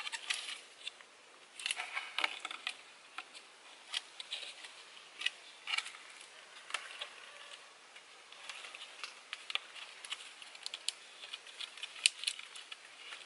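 Scratchy rustles and light, irregular clicks of a binding being wrapped and pulled tight around a joint of bamboo poles, the poles now and then knocking lightly.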